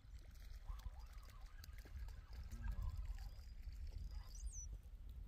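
Open-air ambience: a steady low rumble of wind on the microphone, with faint scattered clicks and one short high bird chirp about four and a half seconds in.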